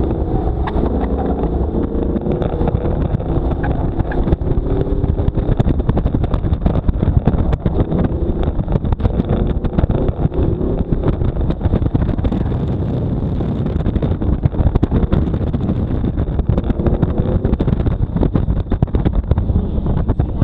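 Car engine revving up and down as the car accelerates and brakes around a cone course, with heavy wind buffeting on the exterior-mounted microphone.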